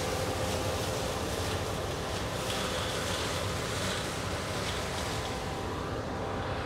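Rostselmash Vector 410 combine harvester running steadily: a constant machine hum with a few held tones under an even hiss.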